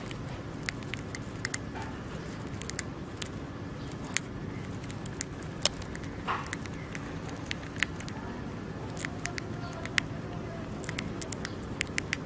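A hamster nibbling popcorn: scattered, irregular sharp clicks over a steady low hum.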